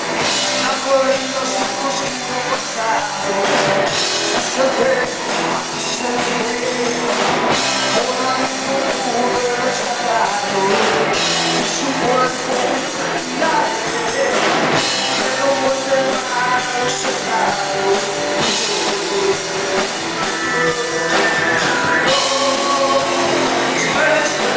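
Live rock band playing with electric and acoustic guitars and a drum kit, a man singing over it.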